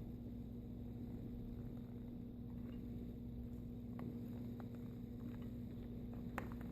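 Low steady hum with scattered light clicks and rustles in the second half and one sharper click near the end, from handling a hair crimper and hair.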